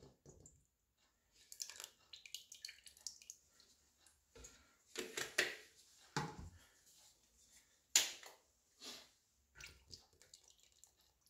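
Buttermilk poured from a carton into a bowl of sliced onions and spices, with faint, uneven glugs and splashes and a sharper click about eight seconds in.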